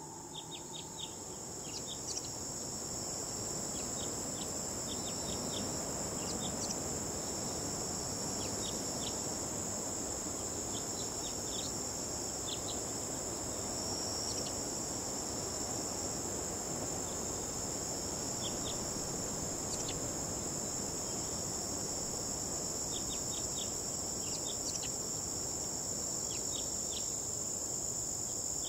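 Insect chorus, likely crickets: a continuous high-pitched shrill with scattered short chirps over a soft hiss, steady throughout.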